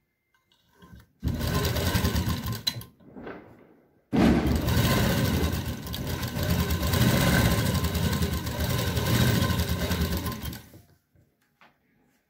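Domestic sewing machine stitching a seam through satin fabric, in two runs: a short one of under two seconds starting about a second in, then, after a brief pause, a longer steady run of about seven seconds that stops near the end.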